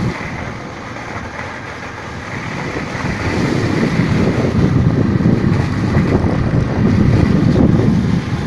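Heavy rain pouring down with gusting wind buffeting the microphone in a deep rumble; it eases about a second in and swells again from about three seconds.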